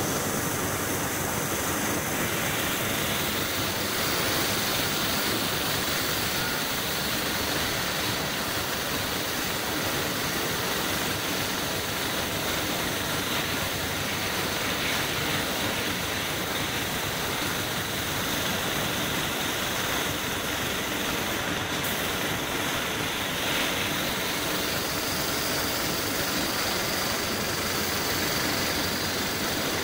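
Steady hiss of compressed air from a small gravity-feed paint spray gun spraying a motorcycle fuel tank, over a low steady machine hum.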